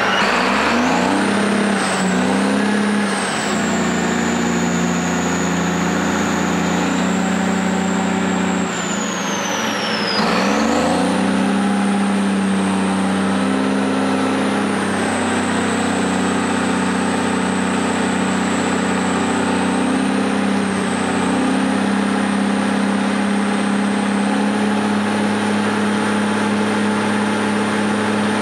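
Six-cylinder Cummins diesel engine of a Champion 740 motor grader running just after start-up. It runs steadily, sags in speed about ten seconds in and picks straight back up, with a high whine that follows the engine speed.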